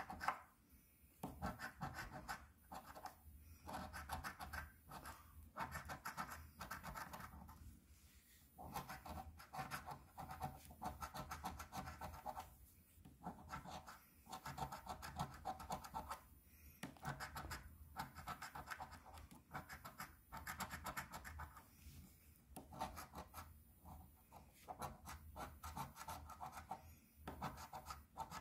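A coin scratching the coating off a lottery scratch-off ticket, in short stretches of rapid back-and-forth strokes with brief pauses between them.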